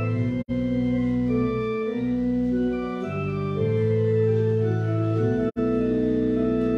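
Church organ playing the postlude in sustained chords over a moving bass line. The sound is twice cut by a split-second gap, about half a second in and again about five and a half seconds in.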